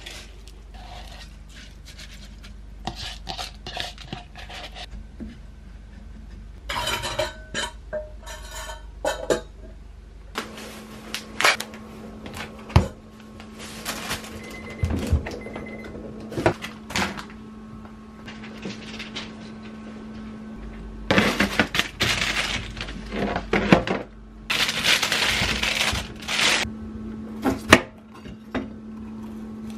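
Kitchen food-prep handling: dry rice poured from a bowl into a frying pan, then dishes and utensils clattering and a kitchen knife cutting green peppers on a cutting board near the end. A steady low hum comes in about a third of the way through.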